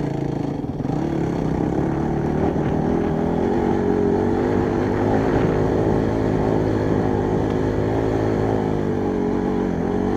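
Honda CRF trail bike's single-cylinder four-stroke engine under way on a dirt track. The revs climb about a second in, then hold fairly steady with small rises and falls, easing briefly near the end.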